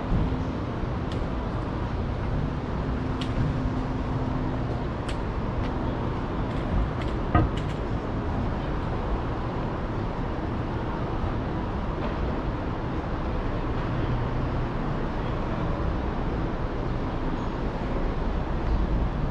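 City street traffic noise: a steady wash of passing and idling cars, with one sharp knock about seven seconds in.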